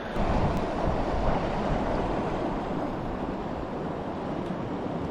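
Steady rush of flowing river water, with gusts of wind on the microphone, a little louder in the first second or so.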